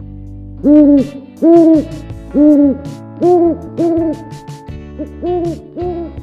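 Eurasian eagle-owl hooting: a series of about eight short, arched hoots, about one a second, growing fainter towards the end.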